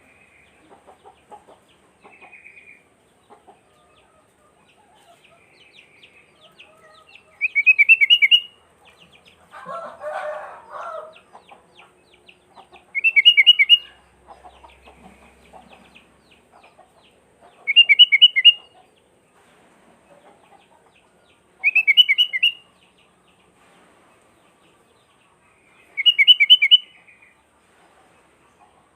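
Sooty-headed bulbul (kutilang) singing: five short, bright, loud phrases repeated about every four to five seconds, with soft chirps between them and a brief rustling noise about ten seconds in.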